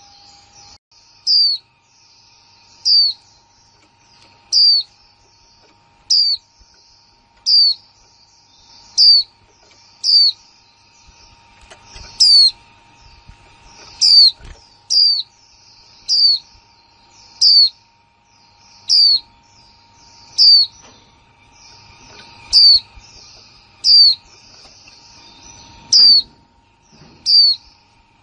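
Female white-eye (chim khuyên mái) giving a short, sharp high chirp about every one and a half seconds, the kind of call played to spur male white-eyes into song, over a faint chatter of other small birds.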